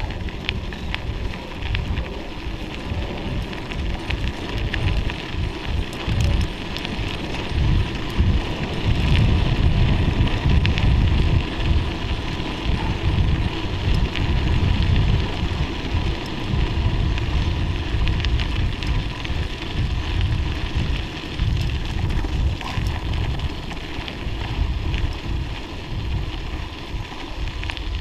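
Tyres crackling and crunching over packed snow and ice on a downhill ride, with wind rumbling on the microphone, the rumble strongest about a third of the way through.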